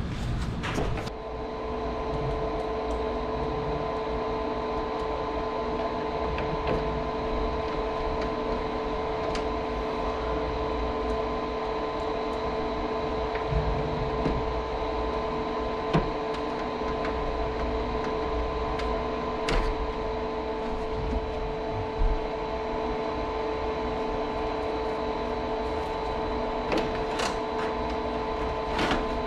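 LG split air conditioner running with a steady, even hum made of several fixed tones, starting about a second in, with a few light clicks along the way.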